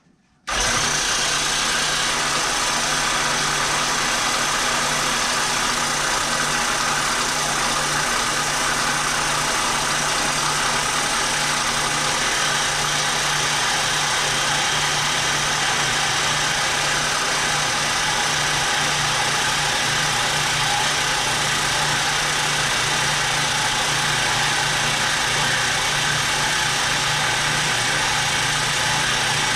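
Bandsaw running steadily at an even level, a continuous machine noise with a low hum, switching on abruptly about half a second in.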